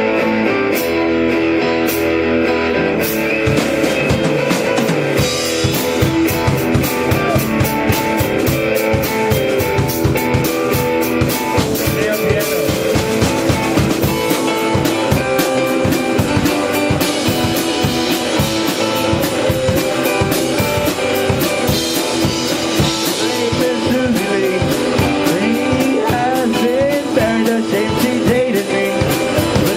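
Live rock-and-roll band playing with electric guitar and drum kit. The drum beat comes in about three seconds in, and a voice sings near the end.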